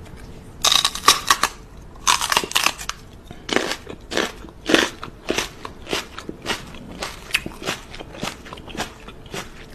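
A woman's kissing and lip-smacking sounds close to the microphone: a run of wet smacks and clicks in irregular clusters, a few a second.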